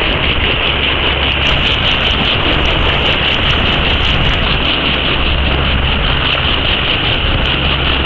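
Boat motor running steadily under way, mixed with a continuous rush of wind and water.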